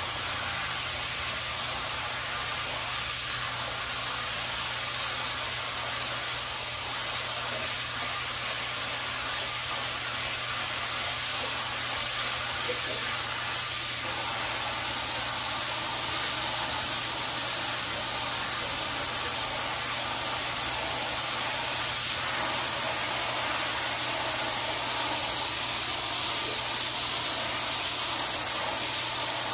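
Water jet from a hose spray wand hissing steadily as it rinses soapy area rugs, with a steady low hum underneath.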